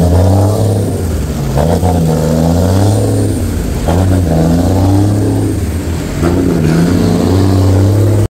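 Large truck's engine running close by, its pitch rising and falling as it revs, over the hiss of rain on the wet road.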